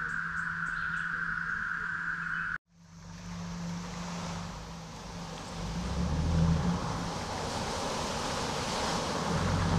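A dense chorus of insects making a steady, even humming drone, cut off abruptly about two and a half seconds in. After that, a four-wheel-drive truck's engine runs under a rushing, wind-like noise that swells louder twice.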